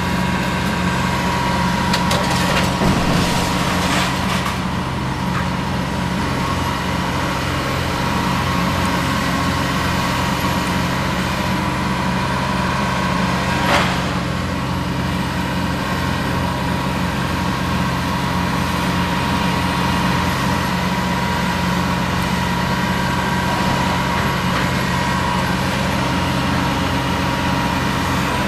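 Diesel engines of hydraulic excavators running steadily while a bucket tears down a building, with crunching and cracking of breaking masonry and wood. A cluster of cracks comes a few seconds in and one sharp crack about halfway.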